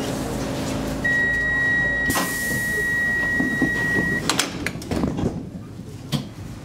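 Lift with glass sliding doors: a steady high electronic beep lasting about three seconds, a short hiss about two seconds in, then a string of clicks and knocks as the doors run and close.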